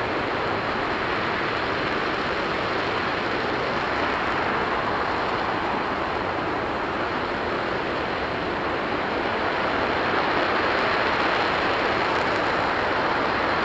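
RS-25 liquid-hydrogen/liquid-oxygen rocket engine firing in a hot-fire test: a steady, loud rushing noise that grows slightly louder about ten seconds in.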